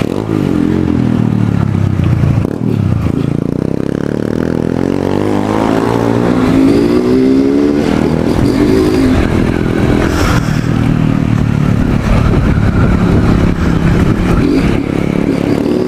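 Motorcycle engine running under way, its pitch dropping as it slows about two seconds in, then climbing again as it speeds up.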